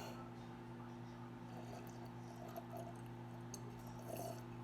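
Quiet room tone: a steady low hum with a few faint, small sounds.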